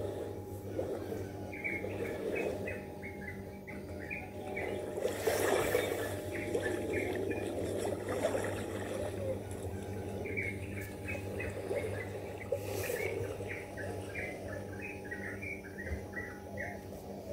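A small bird chirping in two bouts of quick, repeated short notes, one near the start and a longer one from about ten seconds in, over the wash of shallow sea water on sand and a steady low hum.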